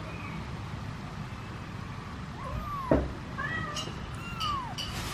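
Kitten meowing twice, each meow falling in pitch, with a short chirp-like call between them. A dull thump about three seconds in, and a few light clicks near the end.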